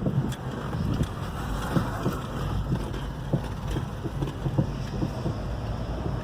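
Steady road and tyre rumble from a 2011 Hyundai i30 driving over uneven pavement, with repeated short knocks from the front suspension, the knocking noise the car has been brought in for.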